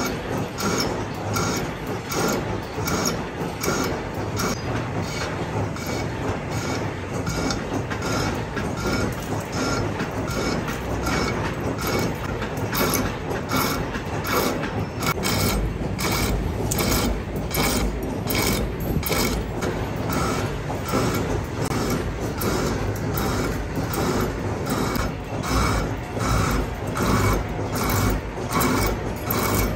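Metalworking machine tool running with a steady, even clatter of knocks, about three a second.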